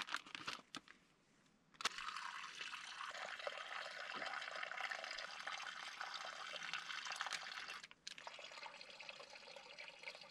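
Aviation fuel streaming from a drain under a Piper Super Cub's engine cowling into a hand-held plastic bag, a steady trickling pour. A little plastic crinkling comes first, the stream starts about two seconds in, then breaks briefly near the end and carries on a little quieter.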